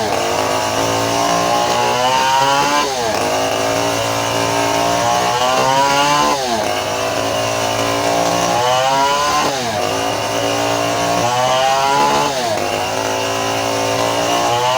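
Stihl 070 two-stroke chainsaw running at high revs while ripping a teak log lengthwise. The engine pitch sags and recovers about every three seconds as the chain loads up in the wood.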